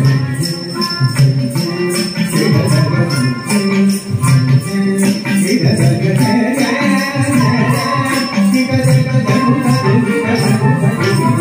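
Carnatic classical dance music for a Bharatanatyam piece playing over stage loudspeakers, with melodic lines over a steady beat of bright jingling strokes about four times a second.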